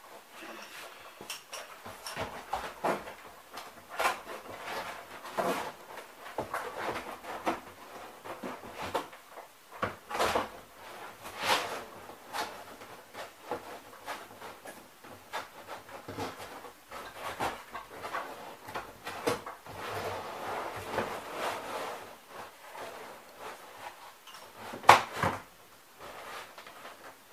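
Stiff plastic sheet rustling, crackling and scraping against cardboard as it is flexed and pushed into a cardboard cabinet compartment, in irregular bursts of handling noise. One sharp knock near the end.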